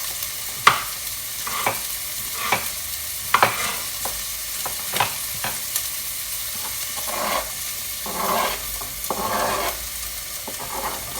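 Chopped onion and pepper sizzling as they fry in a pan, stirred with a utensil that clicks against the pan several times. Near the end it turns to longer scraping strokes.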